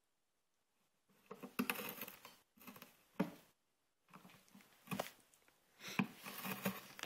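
A cat biting and tearing at the rim of a cardboard box: crackling, ripping cardboard in short, irregular bouts, starting about a second in.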